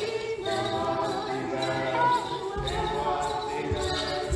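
Church choir singing, several voices holding notes together, with dull low thumps in the second half.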